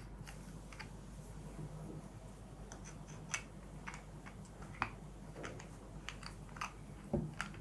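Faint, scattered clicks and taps of hard plastic parts being handled and fitted together while assembling a DJI RS 3 gimbal's battery grip, with a slightly louder knock near the end as a part seats.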